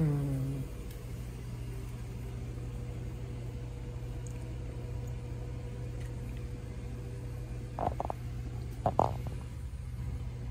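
A steady low hum, with a basset hound's wet chewing and mouth smacks on a cooked green bean coming as two short bursts about three quarters of the way through, the second louder.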